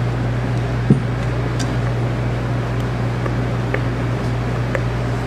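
Steady low mechanical hum throughout. A single knock about a second in and a few faint clicks come from a rubber spatula working a mixture in a steel mixing bowl.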